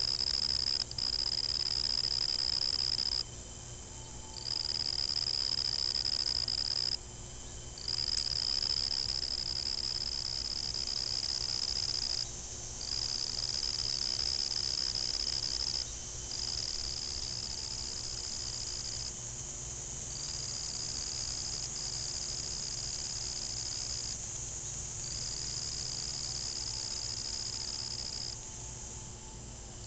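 A singing insect trilling on one steady high pitch, in about seven long stretches of two to five seconds each with short pauses between them.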